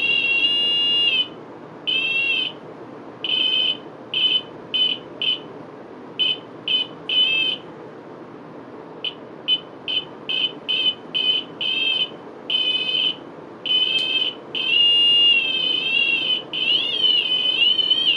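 Ghost-hunting 'ghost pod' field detector sounding a high electronic beep, short and long tones in an uneven string, set off by a hand moving near its telescopic antenna, which the owner believes senses the static electricity field. Near the end the tones run longer and waver in pitch.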